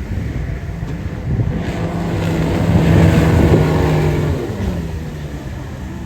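Speedboat outboard motor running at speed, its pitch holding and then dropping away after about four and a half seconds as it throttles back, with wind and water noise.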